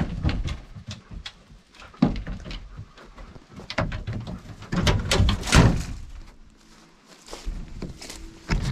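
A dog scrambling up into a pickup truck bed, its paws and claws knocking and scraping on the ribbed bed liner and tailgate. There is a run of sharp knocks and thuds, heaviest about five to six seconds in.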